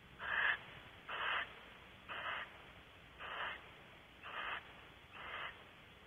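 Barn owl giving its hissing snore call: six short, breathy rasps, evenly spaced about one a second.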